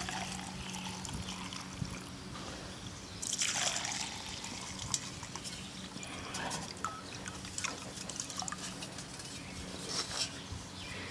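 Gasoline trickling and pouring into a drinking glass, louder for a stretch about three seconds in.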